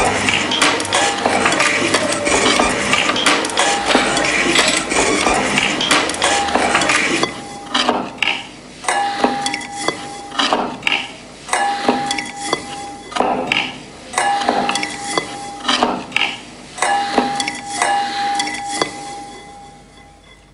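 Dense metallic clinking and hammering on metal, then evenly spaced strokes a little more than once a second, each followed by a short ringing tone, fading away near the end.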